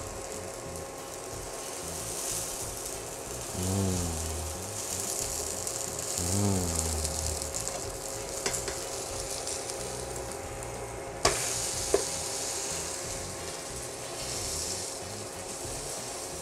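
Grilled cheese sandwich sizzling steadily as it fries in a pan. A couple of sharp clicks come about two-thirds of the way through.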